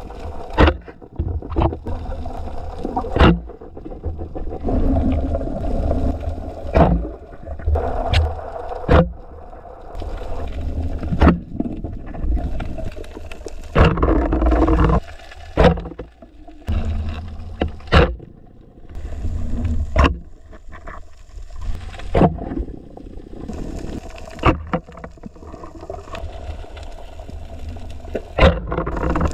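Underwater sound during a night spearfishing dive: water moving and gurgling over a low rumble, with sharp clicks or knocks every second or two.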